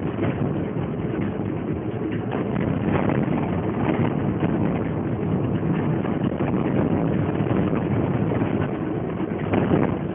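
Road and engine noise inside a moving Alfa Romeo 145 1.6 with its boxer engine, tyres running over rough, patched city asphalt, with louder moments at the start and about half a second before the end.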